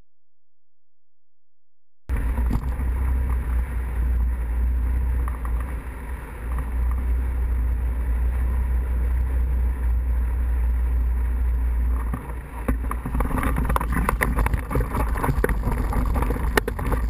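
After about two seconds of silence, wind suddenly starts rushing and buffeting over the microphone of a hang glider's camera as it glides low to land. It is a steady deep rumble that turns rougher and choppier in the last few seconds as the glider comes down to the grass.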